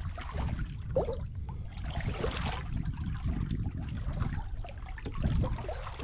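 Sea water lapping and trickling against a kayak hull, under a steady low rumble of wind on the microphone.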